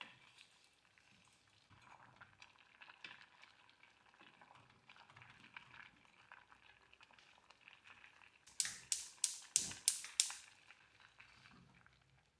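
Faint crackling and bubbling of food cooking on the stove. Near the end, a quick run of about eight sharp taps, about four a second.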